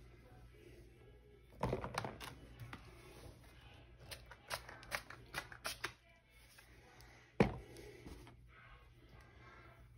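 Hair-styling handling sounds on a toddler's hair: a run of short clicks and rustles about two seconds in, then a quick series of short spritzes from a small hand spray bottle between about four and six seconds in, and one sharp louder click near seven and a half seconds, over a faint steady hum.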